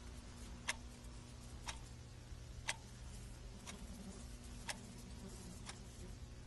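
A clock ticking steadily, about one tick a second with softer ticks in between, over a faint low hum.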